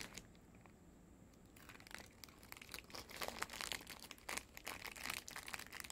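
Candy wrapper crinkling as it is handled and worked open, in quick irregular crackles that start about one and a half seconds in.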